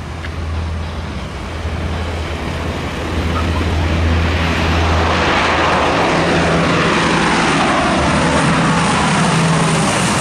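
Lockheed C-130 Hercules four-engine turboprop taking off under full power. It grows louder over the first few seconds, then the propeller drone falls in pitch as the aircraft climbs past.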